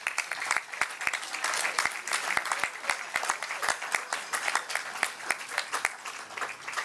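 Audience applauding, many hands clapping, thinning a little near the end.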